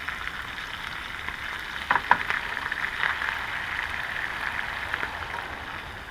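Whole brook trout frying in hot grease in a pan: a steady sizzle with a few sharp crackling pops, the loudest about two seconds in, easing off near the end.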